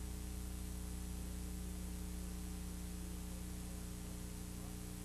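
Steady electrical mains hum with its evenly spaced overtones under a faint even hiss of VHS tape noise.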